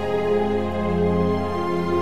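Slow, soft background music with sustained notes, laid over a photo slideshow.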